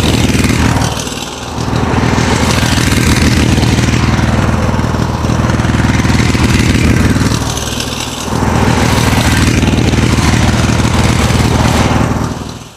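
A small combustion engine running steadily, with two brief dips in level, about a second in and again near eight seconds, before it fades out at the end.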